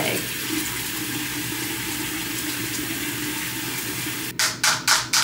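Water running steadily from a tap during a face wash. Near the end it gives way to a quick run of sharp taps, about four or five a second.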